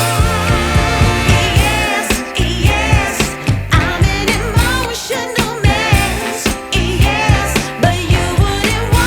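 Background pop-soul song with a female sung vocal and a steady beat.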